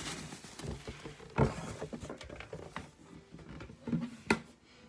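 Box and fabric dust bag being handled: rustling, with a few sharp knocks and taps, the loudest about a second and a half in and another near the end.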